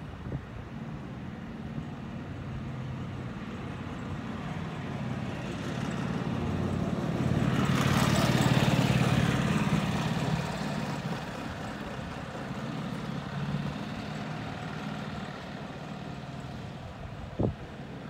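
A motor vehicle's engine hum and road noise, swelling to loudest about halfway through as it passes and then fading away. A short sharp knock near the end.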